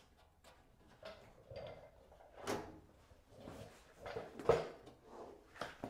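A white powder-coated steel workbench drawer being pulled off its slides and taken out: a series of knocks and clunks, the loudest about four and a half seconds in.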